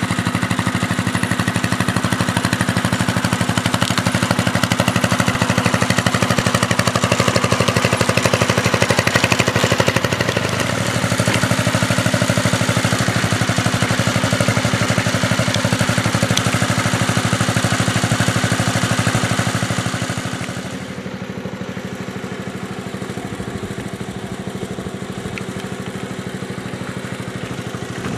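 1972 Sears Suburban SS15 garden tractor engine running steadily while the tractor tows a 920 lb water-filled steel lawn roller. The sound gets a little quieter about two-thirds of the way through.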